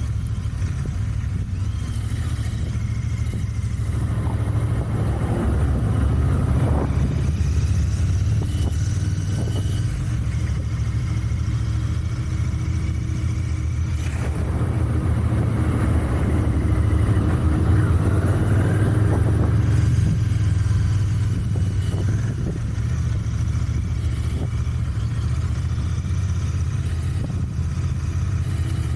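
Royal Enfield Continental GT 650's 648 cc parallel-twin engine on its stock exhaust, running on the move. It rises in pitch and loudness twice as the bike accelerates, a few seconds in and again around the middle.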